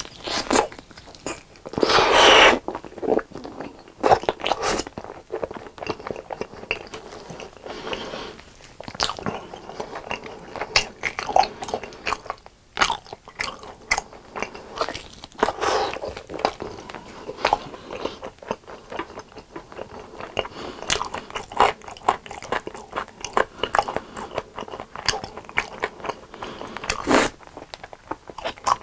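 Close-miked eating sounds: biting into a sauce-glazed grilled chicken leg and chewing it, with many irregular mouth clicks. There is a louder burst about two seconds in and another near the end.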